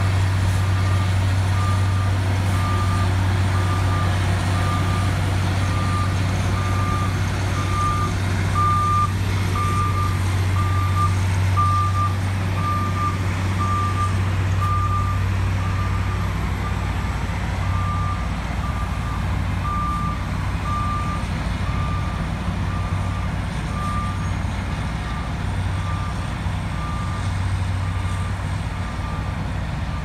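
Heavy diesel road-construction machinery of an asphalt cold-milling crew running steadily, with a back-up alarm beeping at an even pace, a little faster than once a second.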